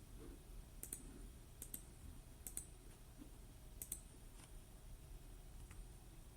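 A few faint computer clicks, spaced roughly a second apart, over quiet room hum.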